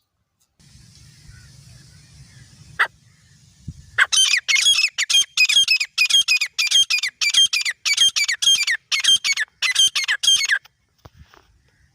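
Grey francolin calling: after a few quiet seconds, a loud, rapid series of repeated harsh, high calls, about two or three a second, which stops about ten and a half seconds in.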